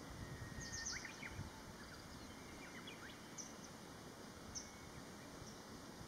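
Small birds chirping faintly: short, high calls in a cluster about a second in, then a few single chirps, over a quiet, steady outdoor background hum.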